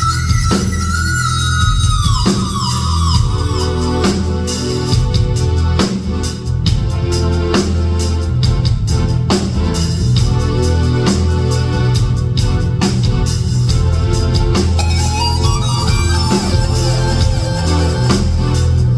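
Live instrumental rock-jazz music: drums hitting over a heavy sustained bass, with long held electric organ-like tones that slide down in pitch near the start and climb again about three-quarters of the way through.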